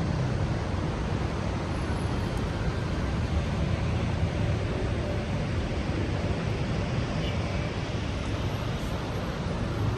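Heavy rain falling steadily as an even hiss, with a low rumble underneath.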